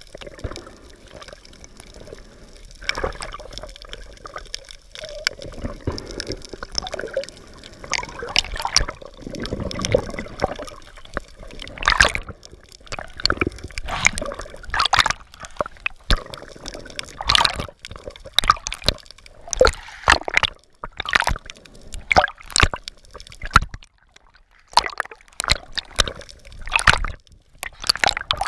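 Water gurgling and sloshing heard through the waterproof housing of a submerged camera, with sharp clicks and pops at irregular intervals that come more often in the second half.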